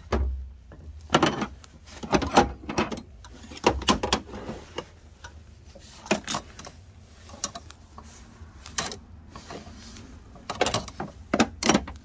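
Metal hand tools, wrenches and air tools, clinking and knocking against each other as a hand rummages through a toolbox drawer. The clinks come in irregular clusters.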